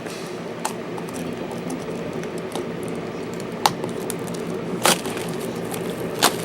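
Trading-card box packaging being handled and pulled open, with scattered crinkles and clicks; the sharpest come at about three and a half, five and six seconds in. A steady hum runs underneath.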